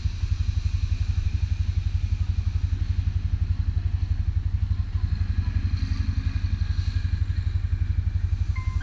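Motor scooter's single-cylinder engine running at a steady idle, a low, even, rapidly pulsing thrum.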